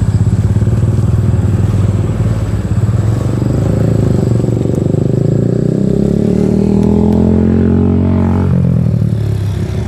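A motor vehicle engine running close by. Its pitch rises steadily from about three seconds in as it accelerates, then drops away suddenly near the end.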